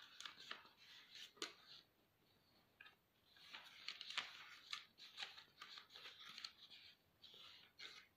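Faint rustling with many short, sharp clicks scattered through it: objects being handled at close range.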